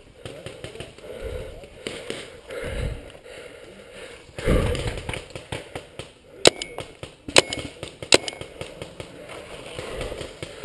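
Three sharp paintball pops close by, a little under a second apart, over rustling and bumping of clothing and gear against the camera.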